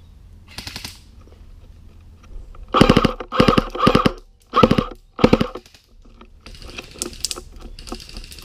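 Airsoft gun firing five short rapid-fire bursts, each a quick string of sharp clicking shots.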